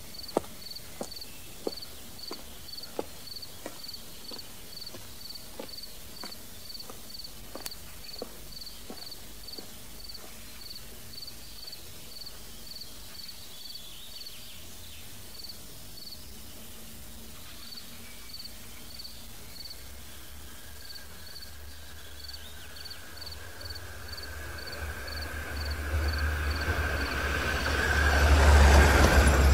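Footsteps fading away over the first several seconds while crickets chirp steadily, about two chirps a second; in the last third a vehicle approaches, its rumble growing steadily louder until it is loud near the end.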